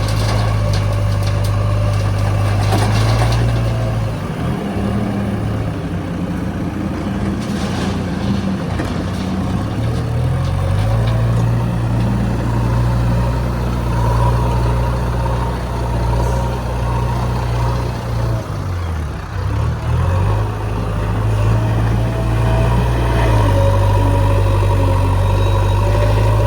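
Heavy construction machine's diesel engine running steadily, its speed dropping and picking up again a few times. There are a few sharp knocks in the first few seconds and again about eight seconds in.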